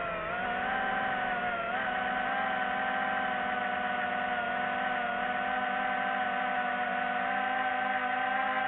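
DJI FPV drone's motors and propellers running with a steady whine, its pitch wavering briefly about two seconds in.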